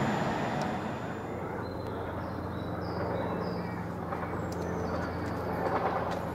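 Railway line ambience: the noise of a passing train dies away in the first second, then a distant train's low, steady engine hum carries on. A few short bird chirps come around the middle.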